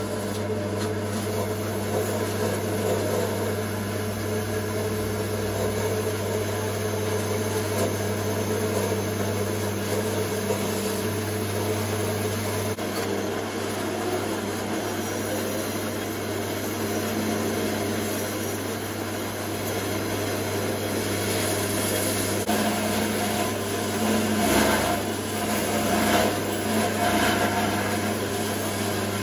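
Draper vertical bandsaw running with a steady hum, its blade cutting through a metal motorcycle inlet manifold; the cutting gets louder and rougher near the end.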